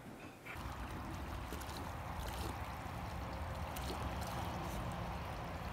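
Shallow stream water running steadily, starting about half a second in, with a few faint splashes from a dog wading in it.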